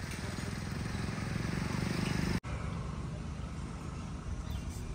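A motor vehicle engine running close by, its low, rapid firing pulses growing louder for about two seconds. It cuts out abruptly about two and a half seconds in, then runs on a little quieter.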